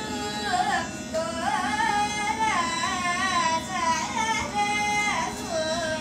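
A high voice singing a Carnatic song in long phrases, the pitch swaying and sliding in ornaments, over a steady drone.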